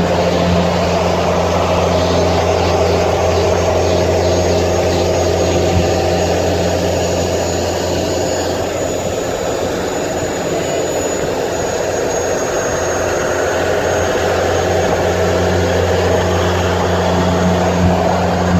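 Steady noise of a vehicle driving at road speed: a low droning engine-and-tyre hum under a rush of wind and road noise. The low hum eases for several seconds in the middle, then comes back.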